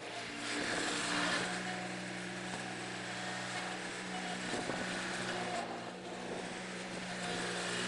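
Ventrac 4520Z compact tractor's engine running steadily as the machine moves past, swelling louder about a second in and again near the end.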